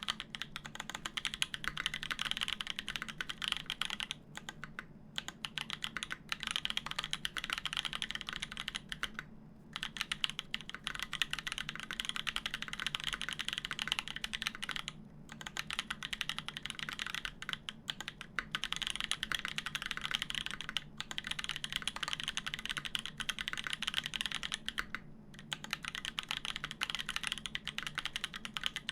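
Fast continuous typing on a custom mechanical keyboard with lubed Gazzew Boba U4T tactile switches on a polycarbonate plate and GMK keycaps, a dense run of keystroke clacks with a few brief pauses.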